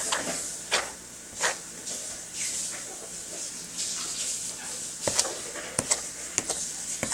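Sticky homemade slime being stirred with a spoon: wet, crackly squelching with irregular sharp smacks and clicks as the slime pulls off the spoon, several coming close together near the end.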